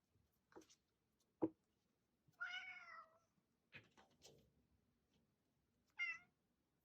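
Kitten meowing twice, a longer meow about two and a half seconds in and a short one near the end, between light taps and a sharp knock about one and a half seconds in.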